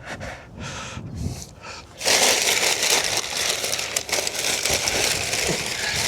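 Rustling and crinkling of packaging as the new mirror is unwrapped. It starts about two seconds in, runs for about four seconds and stops suddenly.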